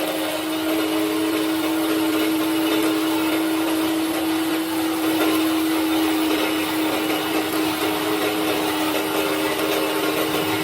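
An electric machine motor running steadily with a constant hum-like whine over a broad rushing noise.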